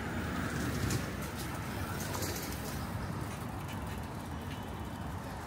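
City street ambience: a steady low hum of traffic with scattered faint clicks.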